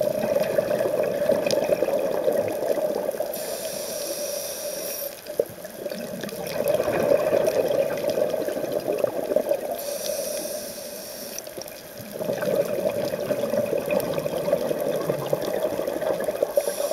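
Scuba diver breathing through a regulator underwater: three long bursts of exhaled bubbles, each lasting a few seconds, with a shorter high hiss of inhaled air between them.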